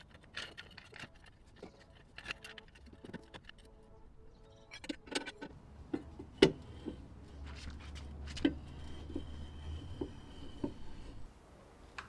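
Metal clicks and clinks of a scissor jack being set under a car's sill and cranked with its bent steel handle, lifting the car for a wheel change. The sharpest clank comes about six and a half seconds in, and a low hum sits underneath for a few seconds in the second half.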